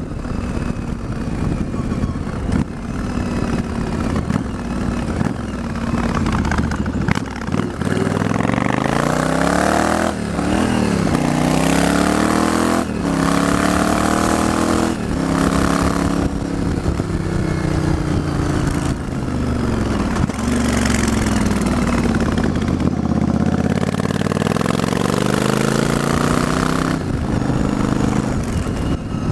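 Yamaha Virago XV1100 V-twin motorcycle engine running steadily, then its speed rising and falling several times from about eight seconds in. The bike has a newly fitted regulator rectifier meant to cure an occasional cough and splutter on the rear cylinder, and no misfire is mentioned.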